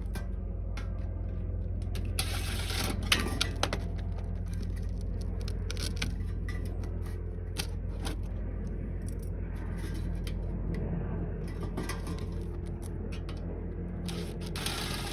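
Hand tools working on the small metal fittings of a diesel heater as they are unscrewed: scattered clicks, taps and clinks, with louder scraping bursts about two seconds in and near the end, over a steady low hum.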